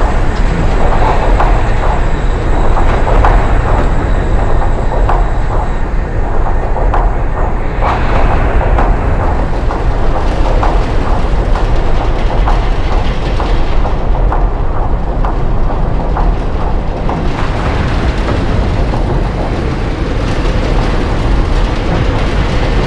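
Experimental sound score for the performance: a loud, dense rumbling noise texture with rapid clattering clicks throughout, thinning in the upper range a little past the middle.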